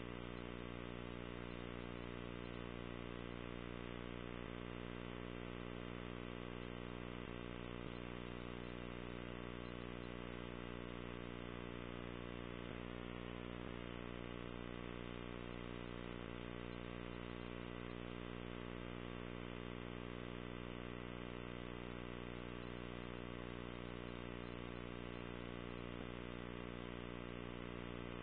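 Steady electrical hum with many overtones, unchanging throughout, with none of the commercials' voices or music audible.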